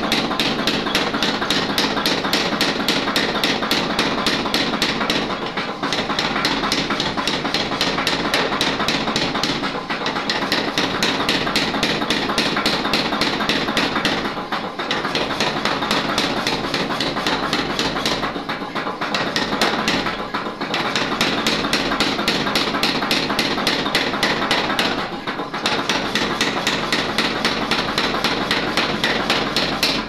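Power hammer pounding a red-hot iron bar in rapid, steady blows, drawing it out to a tapered point. The run of blows breaks off briefly every few seconds.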